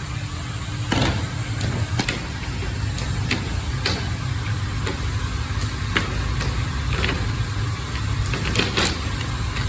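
Paper-wrapping machine for MDF frame mouldings running: a steady low mechanical hum with a faint high whine, and irregular sharp clicks and knocks throughout.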